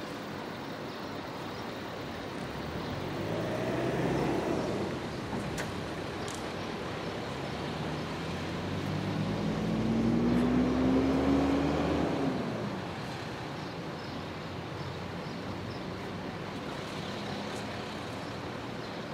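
Two motor vehicles driving past, a fainter one about three to five seconds in and a louder one from about nine to twelve seconds. The engine note of the louder one rises, then drops off as it goes by.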